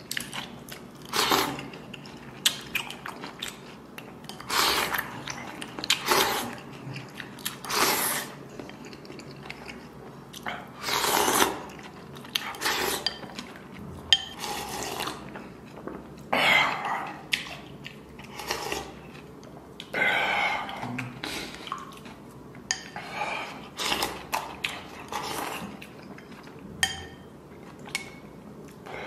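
A man slurping spicy noodle soup from a bowl and chewing: over a dozen short, loud slurps with chewing between them.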